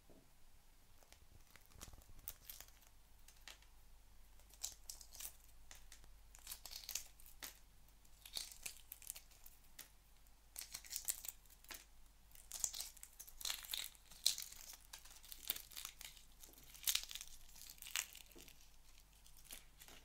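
Eggshell being peeled off an egg: irregular small cracks and crinkly crackles, sparse at first and coming thicker from a few seconds in.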